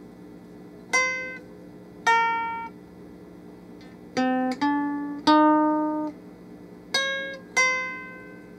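V-shaped electro-acoustic ukulele played through an amplifier: seven single plucked notes, each ringing out and fading, spaced slowly at first with a quicker run in the middle, over a steady amplifier hum. It was tuned in a hurry and is slightly out of tune.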